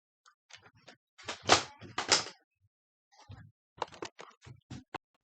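Nerf blaster being fired and handled: two sharp plastic knocks about half a second apart, then a run of smaller clicks and knocks.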